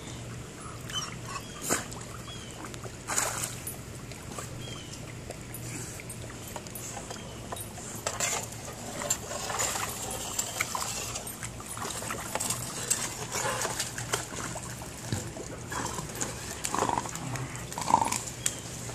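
Dogs splashing and paddling in a swimming pool after a skimmer net, with scattered splashes and clicks of water. A few short dog whines come near the end.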